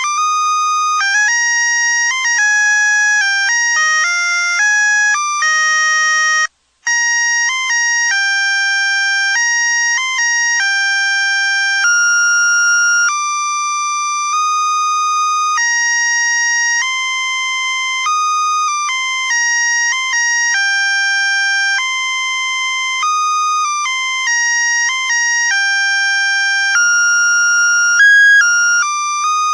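Musical Christmas light string's sound chip playing an electronic melody, one bright beeping note at a time. The tune stops for a moment about seven seconds in, then carries on.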